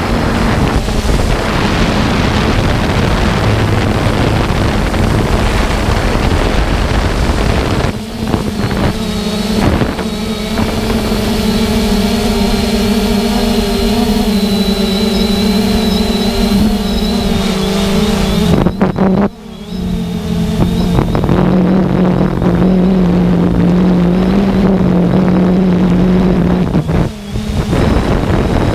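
3DR Solo quadcopter's electric motors and propellers humming, heard from the GoPro it carries, with wind buffeting the microphone. The hum is steady but shifts in pitch a few times as the drone manoeuvres, dipping briefly about two-thirds of the way through.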